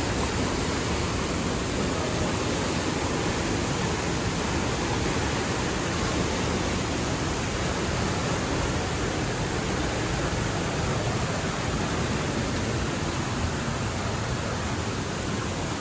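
Steady, unbroken rush of water from a waterfall.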